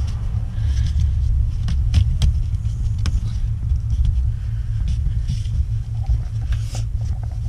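A steady low rumble with scattered light clicks and knocks, typical of parts being handled in a car's trunk.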